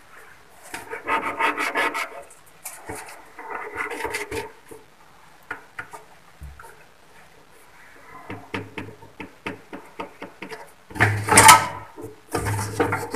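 Marker pen rubbing on a glazed wall tile through the mounting holes of a plastic toilet cistern, in two strokes of about a second each. Later there is a run of small clicks, and near the end louder plastic knocks and clatter as the cistern is lifted off the wall.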